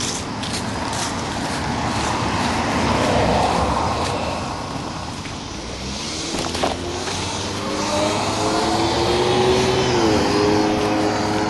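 A motor vehicle's engine: a noisy swell that fades over the first half, then an engine note rising steadily in pitch from about six seconds in, dropping briefly near the end before carrying on.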